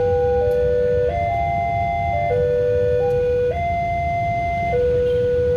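Level-crossing electronic warning alarm sounding a repeating pattern of steady tones that changes note about every second and a quarter, over the low rumble of a diesel train passing at the crossing.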